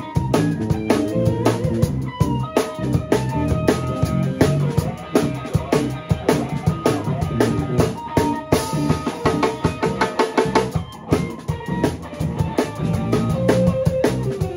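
Live funk band playing an improvised groove: a drum kit with bass drum and snare drives a steady beat, under bass and sustained melodic lines from the other instruments.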